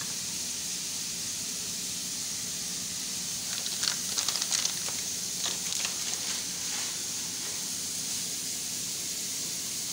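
Short, irregular scrapes and clicks of a block of cheese and a flat stainless-steel grater being handled against a ceramic plate, clustered from about three and a half to seven seconds in. A steady hiss runs underneath.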